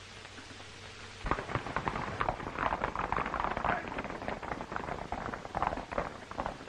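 Hoofbeats of a group of horses galloping, a dense irregular clatter that starts about a second in.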